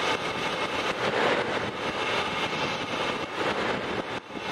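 Dodge Dakota's engine cranking and firing on WD-40 sprayed into its air intake, a continuous engine noise that dips briefly near the end. It runs on the spray because its failed fuel pump delivers no gasoline.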